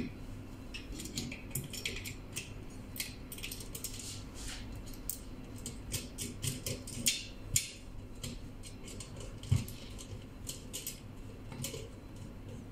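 Irregular small metal clicks and clinks as a stainless blank cap and hinged clamp are fitted by hand onto the outlet port of an air-cooled diffusion pump, with a duller knock about nine and a half seconds in.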